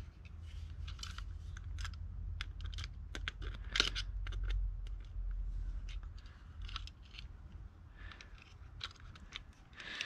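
Irregular clicks, ticks and light scrapes of small chainsaw parts and hand tools being handled during reassembly, over a low rumble.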